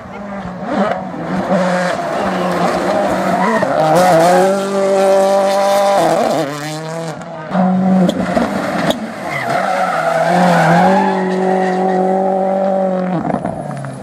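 Rally car engine revving hard, held at high revs for seconds at a time, dipping and climbing again about three times.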